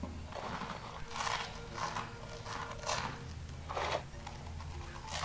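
Crunchy chocolate-cappuccino puffed corn snacks being chewed close to the microphone: several short crunching bursts at irregular intervals.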